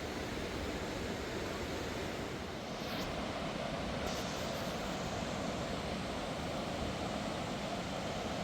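Steady rushing roar of a river in flood, running at an even level with no pauses.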